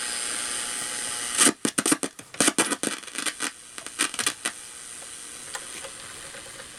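RCA AR-77 shortwave receiver hissing with no station tuned in. About a second and a half in comes a run of sharp crackles and clicks of static that lasts a few seconds and dies back to a steady, quieter hiss.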